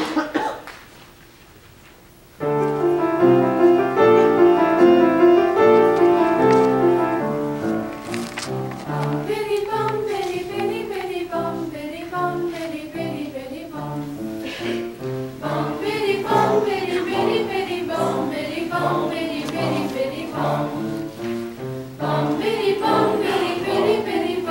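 A high-school mixed choir begins a piece about two and a half seconds in, after a short sharp sound at the very start. It opens on long held chords and from about eight seconds moves into a faster-changing passage with a steady pulse, accompanied by piano.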